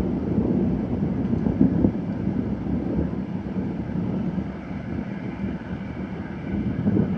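Gusty wind buffeting the microphone: a low, unpitched rumbling noise that swells and eases irregularly.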